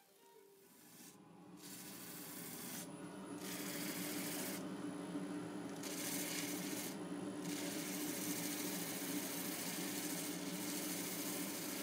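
A small motor running steadily with a rough rasping, abrading noise on top. The rasp cuts out briefly about four times in the first seven seconds and then runs on evenly. The whole sound fades in over the first few seconds.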